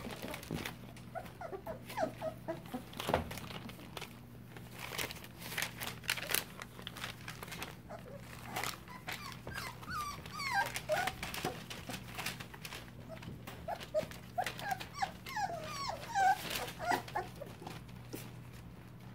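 A litter of three-week-old puppies whimpering and squeaking in short, high bursts that come in clusters. Scattered clicks and rustles run among the calls.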